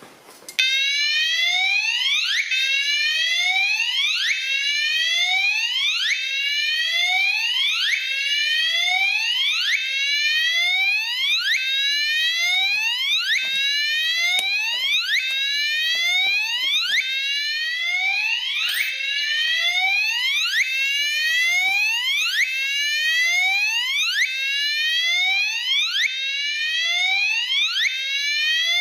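Police-siren alarm sounding a rapid, repeating rising whoop: each sweep climbs in pitch and cuts off sharply before the next begins. It starts about half a second in and keeps an even pace throughout.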